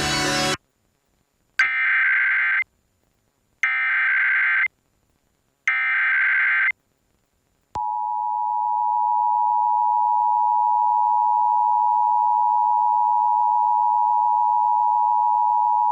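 Emergency Alert System test tones broadcast over FM radio. Music cuts off in the first second. Then come three one-second bursts of the screechy SAME digital data header, a second apart, and about eight seconds in the steady two-tone EAS attention signal starts and holds at one pitch pair.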